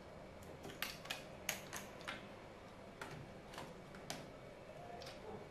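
Faint, irregular clicks and taps of small plastic and metal parts being handled inside an opened laptop, the sharpest few about a second in.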